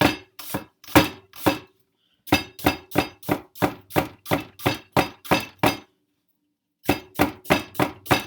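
Kitchen knife chopping on a cutting board in quick, even strokes, about two to three a second, each with a short clink. The chopping breaks off twice for a moment.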